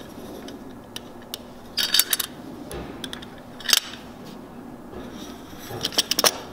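Light clicks and knocks of a wooden block with a brass butt hinge being handled and set on a wooden workbench: a short cluster about two seconds in, a single sharp click near four seconds, and a quick run of clicks near the end.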